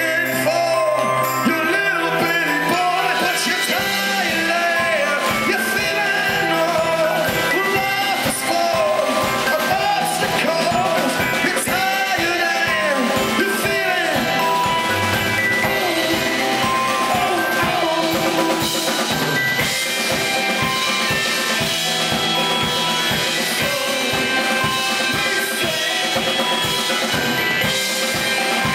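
Live rock band playing loudly: a male singer's voice over keyboards, electric guitar and drums. The singing drops out about two-thirds of the way through, and the band plays on with a regular drum beat.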